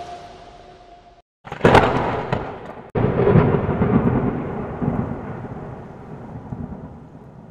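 Thunder-like rumbling. A fading rumble cuts off abruptly to silence, then two sudden crashes about a second and a half apart each die away slowly over several seconds.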